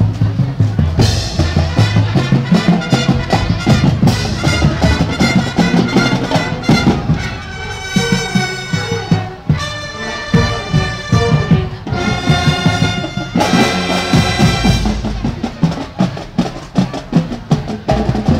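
Marching band playing, brass over a driving drum line, with a run of long held brass chords in the middle.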